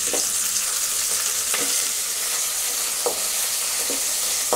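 Shallots, curry leaves and dried red chillies sizzling in hot oil in a metal kadai as a tempering, with a steady hiss. A perforated metal ladle stirs them, scraping the pan a few times.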